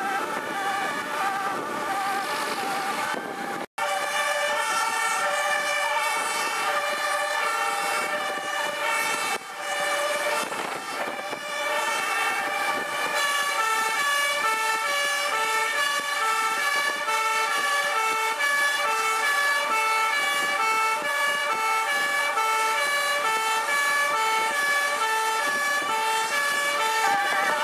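Sirens of several fire engines in a convoy sounding together out of step, each stepping back and forth between a high and a low note, over vehicle engine and road noise. The sound cuts out for an instant about four seconds in.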